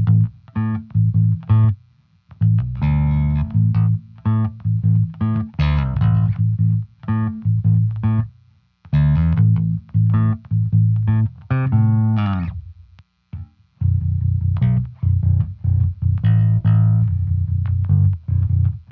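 Spector 5-string bass guitar playing a riff of plucked notes through a BIAS software amp model based on the Blue Line bass amp, with a 4:1 compressor in the chain. The notes come in phrases with short breaks, and one note slides down in pitch about two-thirds of the way through.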